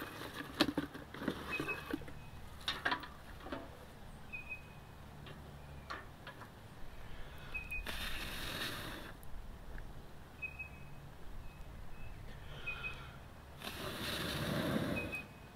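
Knife blade scraping and cutting a wooden stick in short strokes over the first few seconds. Twice, about eight seconds in and more loudly near the end, a person blows hard on a smoking fire for a second or so.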